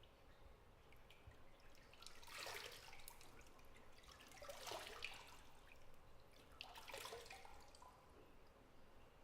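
Faint water moving in a bathtub: three brief splashes or pours, about two seconds apart, in a small tiled bathroom.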